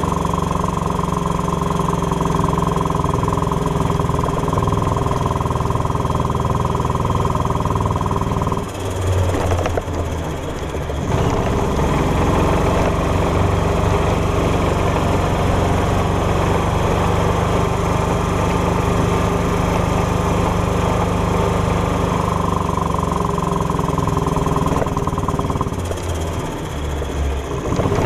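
Golf cart engine running steadily under way. Its even note breaks off and dips twice, about nine seconds in and again near the end, before picking back up.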